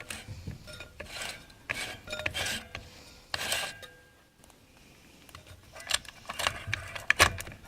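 Steel transmission parts in a 700R4/4L60 input drum clinking and scraping as a part is spun by hand to work it down onto its splines. The sound goes quiet for a moment near the middle, then sharper clicks pick up again toward the end.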